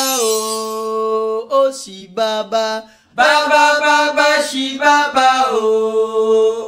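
Intro music of a chanting voice singing long held notes, each sliding down into place. Shorter broken notes and a brief dip come between about one and a half and three seconds in, then another long held phrase.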